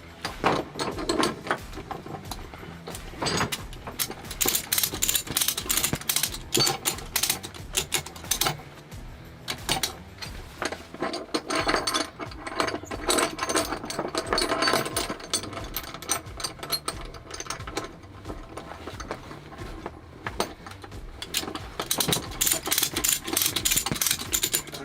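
A ratchet strap's ratchet buckle being worked by hand, its pawl clicking in quick runs of clicks with short pauses between them.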